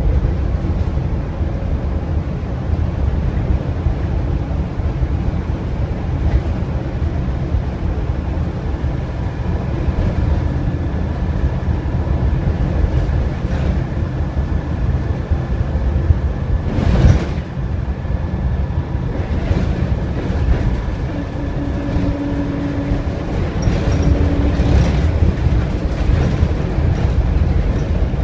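Inside an Optare Versa single-deck bus on the move: a steady rumble of engine and road noise, with a faint thin whine through the middle. A single sharp knock or rattle comes about two-thirds of the way through.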